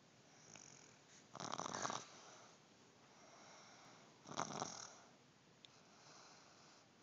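A sleeping baby snoring softly: two snoring breaths about three seconds apart, each lasting about half a second, with fainter breathing between them.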